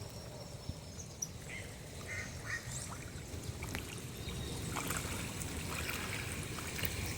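Short bird calls in small clusters, beginning about one and a half seconds in, over a steady low rumble.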